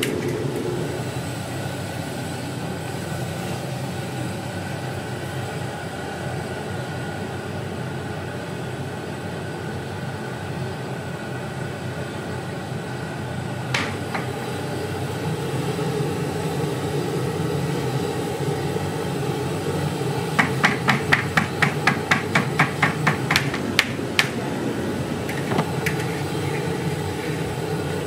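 Steady frying noise from a large kadai of hot oil over a gas burner. About two-thirds of the way through comes a quick run of about a dozen sharp metallic taps, about four a second, from a metal ladle struck against the kadai.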